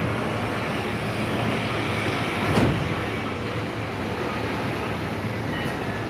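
Street traffic noise: a steady hum of vehicles passing over a level crossing, with one louder vehicle going by about two and a half seconds in.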